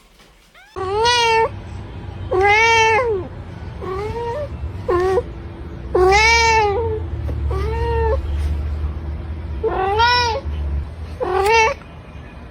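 A domestic cat meowing repeatedly: about eight meows, each under a second long, over a steady low rumble.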